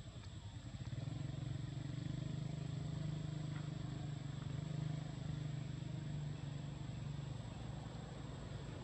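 A motor vehicle's engine running steadily as a low hum that grows louder about a second in and eases off near the end, with a faint steady high-pitched whine throughout.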